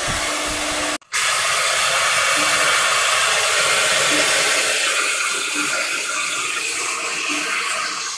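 Router spindle of a four-spindle CNC nesting machine running at high speed and cutting into an MDF panel, a steady hiss-like whir. The sound cuts out for a moment about a second in.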